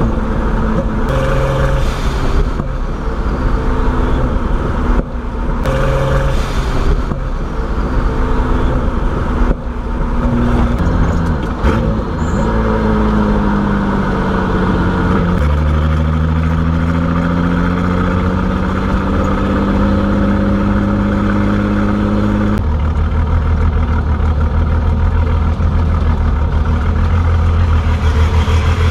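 Turbocharged BMW E30 engine driving, its pitch stepping up and down in the first half, then climbing steadily through the middle under acceleration before dropping off suddenly about three-quarters of the way in and settling into a steady low running note.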